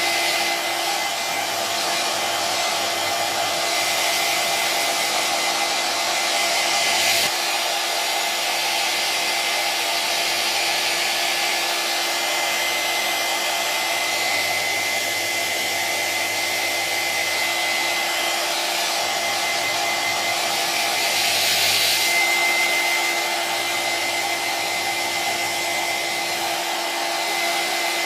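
Electric hair dryer running continuously: a steady rush of blown air with a constant motor whine, swelling slightly twice.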